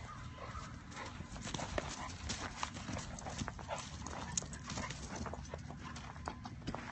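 Steps crunching in snow: many short, irregular crunches. Dogs playing in the snow are the likely source.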